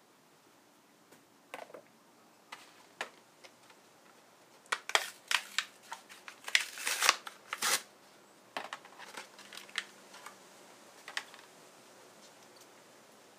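Handling noises on a metal workbench: a sheet of cardboard and packaging being set down and moved. There are scattered sharp taps and rustles, with a dense cluster from about five to eight seconds in.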